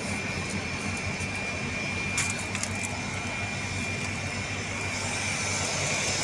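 Daikin 11-ton ductable air-conditioning units running: a steady low hum with a thin, steady high whine over it. A light click sounds once about two seconds in.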